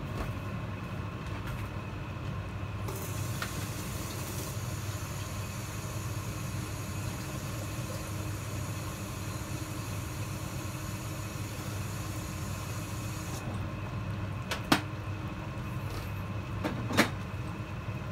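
Steady low mechanical hum in a kitchen, with a high hiss from about three seconds in until about thirteen seconds, and two sharp clicks near the end.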